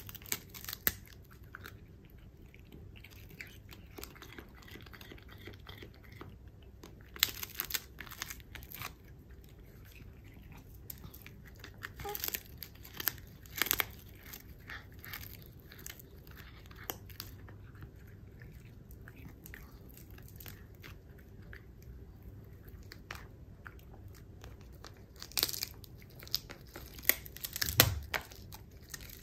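Cats biting and chewing dried salmon jerky (sake toba) held in a hand. Irregular crunches of the hard dried fish come in a few spells of gnawing.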